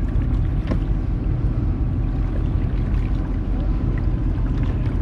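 Old Town BigWater PDL pedal-drive kayak under way: a steady low rumble of water along the hull, with scattered small splashes and ticks.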